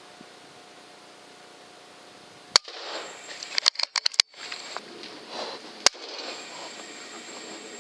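A single sharp shot from a pre-charged pneumatic air rifle, followed about a second later by a quick rattle of metallic clicks and, near the end, one more sharp click.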